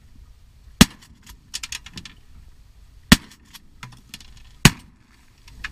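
Three shotgun shots, the second about two seconds after the first and the third about a second and a half after that, with a cluster of lighter clicks shortly after the first shot.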